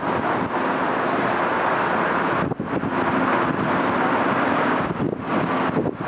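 Formation of four army helicopters flying past, a steady rotor and engine drone mixed with wind buffeting the microphone.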